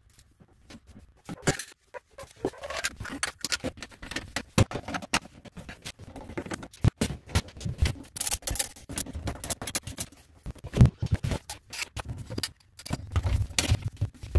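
Tubular P-trap and drain pipe parts being handled and fitted under a bathroom vanity: irregular scraping, clicking and knocking of pipe pieces and slip nuts, with a sharp knock about seven seconds in and another around eleven seconds.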